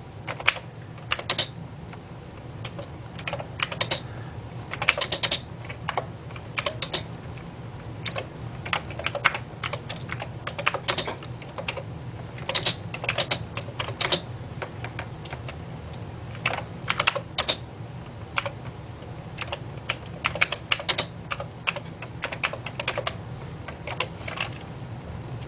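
Typing on a Commodore 128's keyboard: runs of quick key clicks with short pauses between them, over a faint low steady hum.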